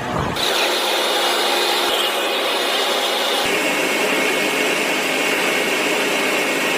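Steady machine noise, an even hiss with a faint high whine, that changes abruptly about three and a half seconds in, where the whine drops lower.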